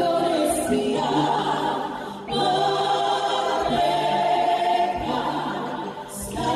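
A group of women singing together, accompanied by a kolintang ensemble of struck wooden xylophones; the singing breaks off briefly twice, about two seconds in and near the end, between phrases.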